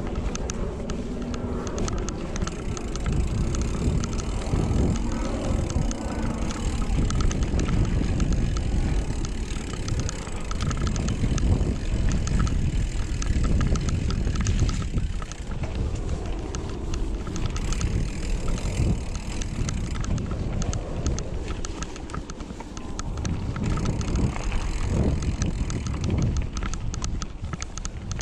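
Mountain bike riding down a rough dirt trail: tyres rolling over the ground and the bike rattling over bumps, with a steady low rumble of wind on the microphone.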